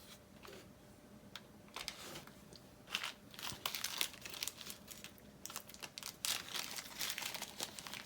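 Small plastic bag of screws crinkling as it is handled and opened. The rustling comes in irregular bursts starting about two seconds in.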